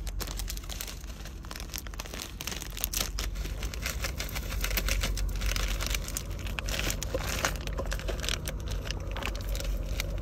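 Plastic food packaging crinkling and crackling as udon noodles are tipped from their bag into a Jetboil pot and a sauce packet is handled, over a steady low hum.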